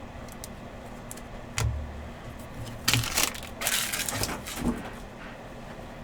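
Trading cards and packaging being handled on a table: a few light knocks, then about a second of crinkly rustling and a final knock.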